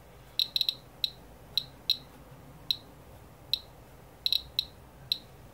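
Radalert 50 Geiger counter ticking: short, high-pitched beep-clicks at random intervals, sometimes several in quick succession. Each tick is one radiation count, here from a radium-dial clock held against the detector.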